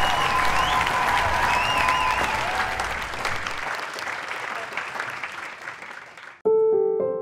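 Applause with a few voices calling over it at first, fading away over several seconds. It cuts off near the end, and a few sustained keyboard notes start abruptly.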